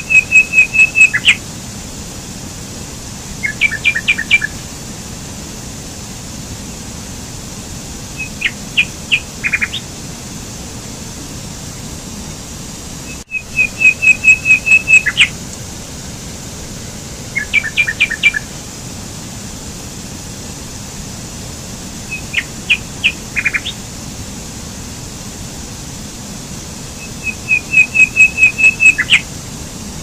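Stream water rushing steadily over rocks, with a small songbird singing short phrases of rapid chirps about every four to five seconds, seven times. The sound cuts out for an instant about 13 seconds in.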